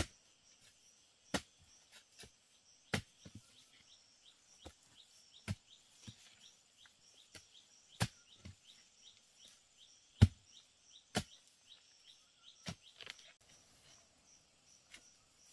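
Sharp chopping strikes of a digging tool, about a dozen at uneven intervals, over a fast, high chirping of insects repeating about three times a second.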